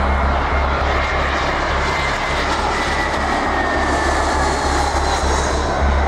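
Airbus A320's IAE V2500 turbofans on landing approach: a steady jet rush with a thin whine that slowly falls in pitch as the airliner passes overhead.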